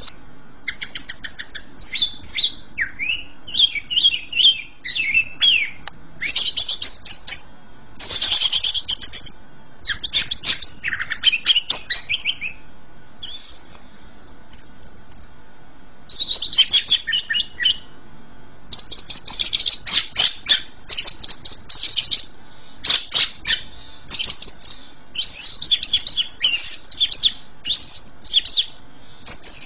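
Greater green leafbird (cucak ijo) in full song: rapid, varied runs of high chattering and whistled notes with short breaks, and a longer lull about halfway through, broken by a single whistle.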